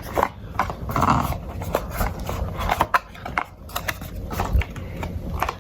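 Small accessory packaging being handled: rustling with scattered clicks and taps.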